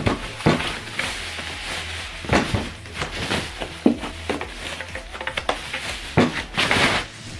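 Thin protective foam wrapping rustling and crackling in irregular bursts as it is pulled off a subwoofer cabinet, with a few sharp handling knocks.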